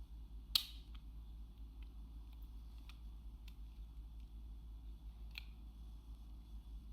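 Small objects being handled, giving a sharp click about half a second in, a softer click a little before the end, and faint ticks between, over a low steady hum.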